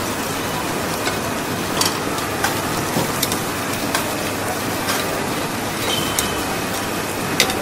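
Food sizzling in hot oil: a steady hiss with scattered sharp clicks about once a second.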